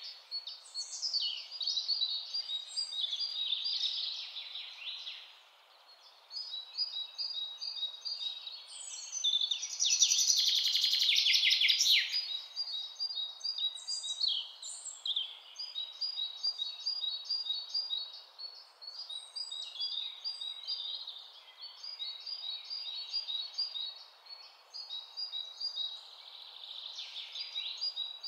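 Stock recording of birdsong: several birds chirping and trilling in quick repeated notes, with a brief lull a few seconds in and the loudest stretch about ten seconds in.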